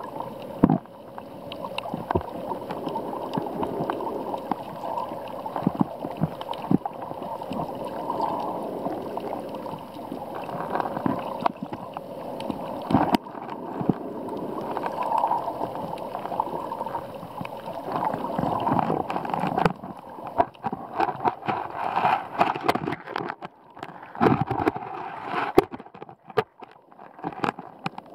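Shallow sea water sloshing and gurgling around an underwater camera, with scattered clicks and knocks. It grows choppier, with more clicks, in the last several seconds.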